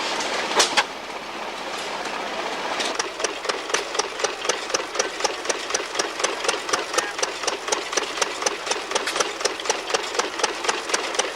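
An engine running with an even, rapid ticking, about five beats a second, which sets in about three seconds in; a single sharp click comes just before it.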